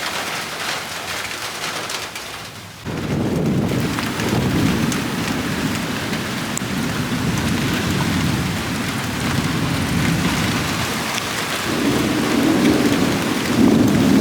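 Heavy rain falling steadily in a thunderstorm. About three seconds in, a long low rumble of thunder sets in suddenly and rolls on, swelling again near the end.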